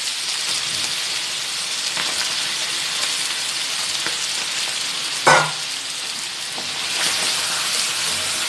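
Chicken breast pieces and sliced mushrooms sizzling in a frying pan, with a single sharp clank about five seconds in.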